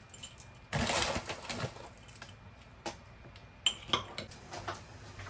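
Small clicks and clatter of kitchen things being handled, with a brief rustling burst about a second in and a few sharp clicks near the end.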